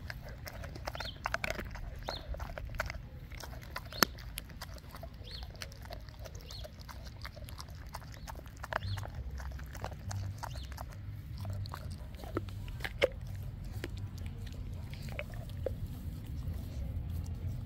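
Dog eating raw meat, with irregular wet chewing and smacking and many sharp clicks. Two stronger cracks come about four seconds in and about thirteen seconds in.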